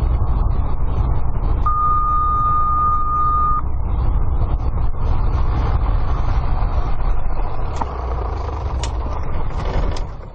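A light aircraft's engine and cabin noise running steadily, with one high, steady beep of about two seconds early on and a few light clicks later; the noise drops off near the end.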